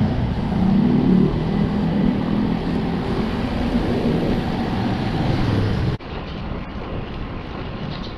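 Traffic heard from a moving bicycle: a motor vehicle's engine running close by over steady wind and road noise. About six seconds in the sound cuts abruptly to quieter, duller wind noise.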